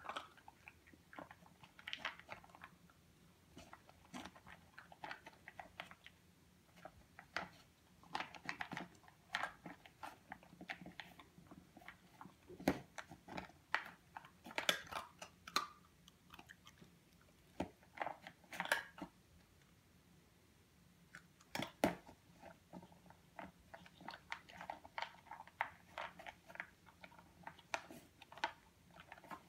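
Doberman pinscher puppy eating from a plastic tub: irregular crunching, chewing and clicking that comes in clusters, with a short pause a little past two-thirds of the way through.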